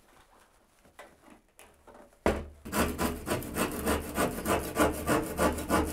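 A hand saw cutting through the ceiling for the fan opening, starting about two seconds in. It goes with quick, even back-and-forth strokes, about four or five a second.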